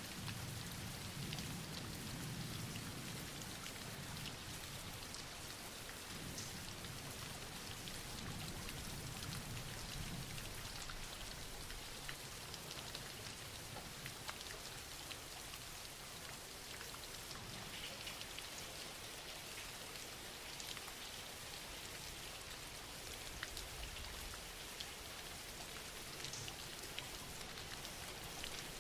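Steady, soft rain falling, with scattered drops pattering on a surface.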